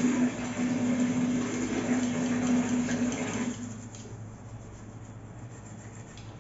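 A brush scrubbing a chrome angle valve, a dry rubbing hiss over a steady hum. The hum stops about three and a half seconds in, and the scrubbing goes on more quietly as faint, quick strokes.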